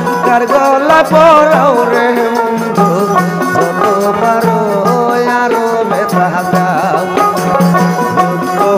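Bengali folk song (bichhed gaan) played live: a male voice singing over a plucked dotara, a steady harmonium drone and driving hand percussion from a small frame drum and hand-held instruments.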